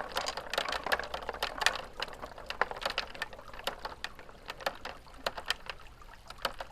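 Marbles rolling along a marble run track and clicking against it and each other: a dense rolling clatter for the first couple of seconds that thins to scattered clicks.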